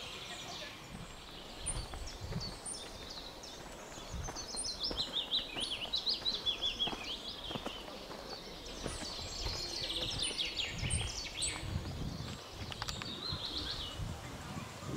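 Songbirds singing: repeated phrases of quick high chirps, some running down in pitch, with low gusts of wind on the microphone.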